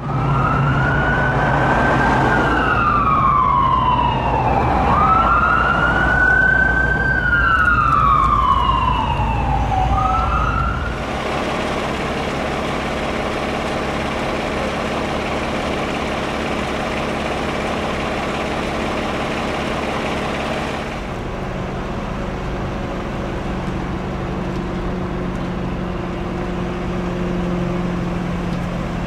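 Fire engine siren wailing in slow rising and falling sweeps over the rumble of a heavy truck engine. About eleven seconds in it gives way to the fire engine's engine idling steadily.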